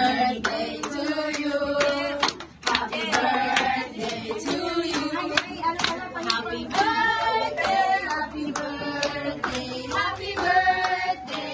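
A group of people singing together while clapping their hands in a steady beat.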